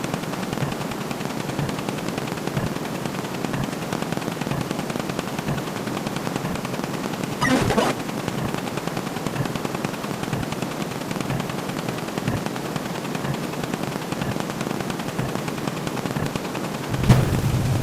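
A continuous fast rattle of short clicky sound effects firing too quickly to separate, like machine-gun fire. A brief louder burst with a wavering pitch comes about seven and a half seconds in, and a louder, heavier burst near the end as the count reaches a new digit.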